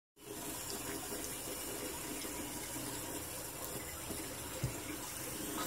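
Bathroom sink faucet running a thin stream into the basin, a steady hiss, with a soft knock about four and a half seconds in.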